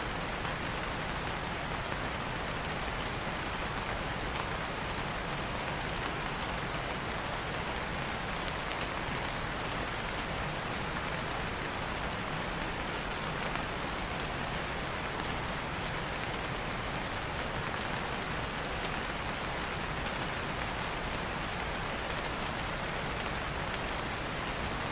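Steady rain falling, an even, unbroken hiss with no change in strength.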